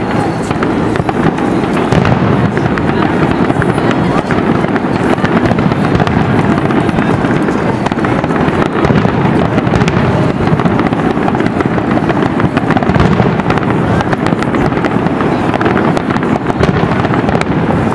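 Fireworks display: a continuous barrage of shell bursts, with many sharp cracks overlapping one another.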